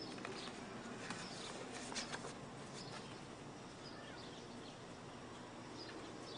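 Faint rustling of a paper diploma folder being opened and handled, a few short crackles about one to two seconds in, over a low steady hiss.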